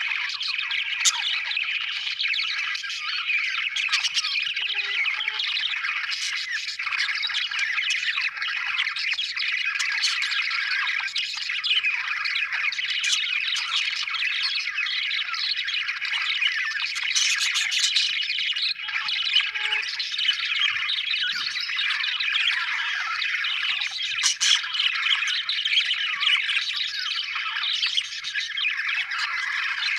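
Many budgerigars chattering together without pause, a dense mass of warbling and chirping with a few sharper calls standing out now and then.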